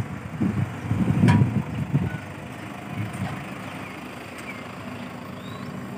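Road traffic passing on a street: a steady vehicle hum, with gusts of wind rumbling on the microphone during the first two seconds.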